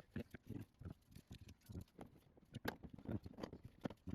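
Irregular light clicks, taps and knocks of hand work on car door parts, many small strikes in quick, uneven succession.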